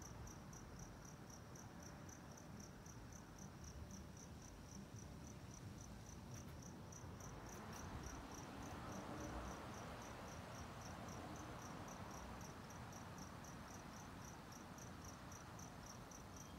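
A cricket chirping steadily, about four evenly spaced chirps a second, over a faint low rumble of outdoor night noise that swells a little midway.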